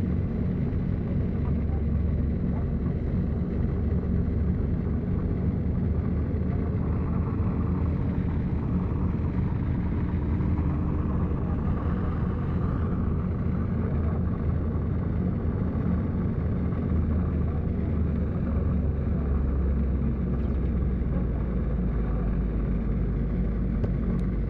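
Steady low engine and road noise of a moving vehicle, unchanging throughout.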